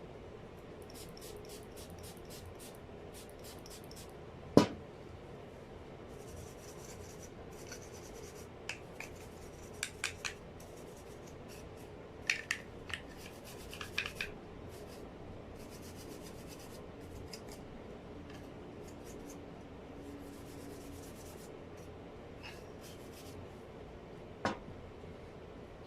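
Small clicks, scratching and rubbing of hair clipper parts being handled and worked on, with two sharper clicks, one about four seconds in and one near the end.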